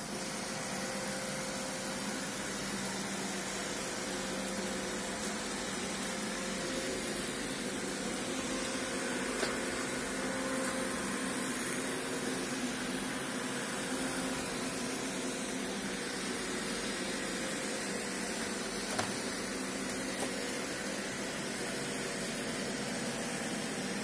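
Robot vacuum running steadily over a tile floor, a constant motor and brush hum with a couple of faint clicks.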